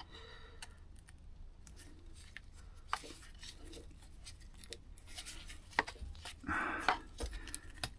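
Faint clicks and light rubbing of hands working a stiff, aged rubber impulse line off a Stihl FS160 brushcutter's carburettor, with a sharper click about three seconds in and a brief rustle near the end.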